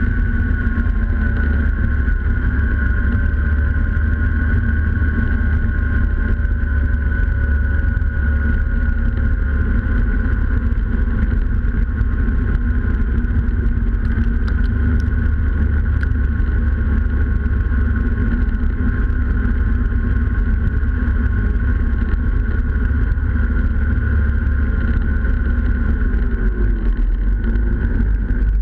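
Snowmobile engine running steadily at cruising speed, recorded close up from a camera on the machine's hood, with a constant whine over the engine drone. Near the end the pitch drops briefly as the machine eases off.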